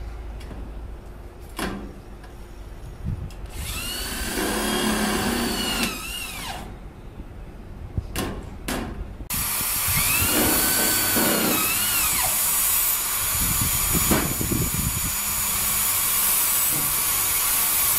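A corded electric drill driving screws into roof panel trim. It runs in a short spell with its whine rising and falling in pitch, then runs steadily from about halfway through, with a few knocks before and between.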